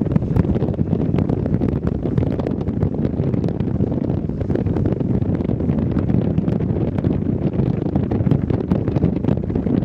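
Wind buffeting the microphone: a steady, loud low rumble with constant gusty flutter.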